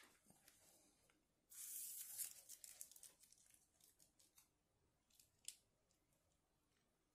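Faint handling noise of a small plastic figure being turned and posed in the hands: a brief rustle about a second and a half in, then scattered small clicks, with one sharper click about five seconds in.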